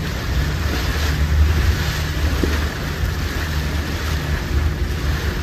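Boat engine running steadily under way, a constant low drone, with wind on the microphone and water noise over it.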